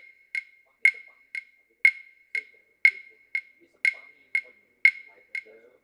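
Steady percussive ticking like a wood block, about two knocks a second, alternating louder and softer, each ringing briefly at one pitch.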